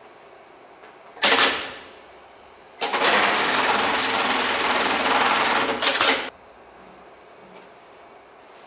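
Garudan computer-controlled pattern sewing machine. About a second in there is a sudden clunk that dies away quickly. Then the machine stitches a small square tuft pattern through a stuffed cushion for about three and a half seconds, running fast and steady, and stops with a couple of sharper knocks.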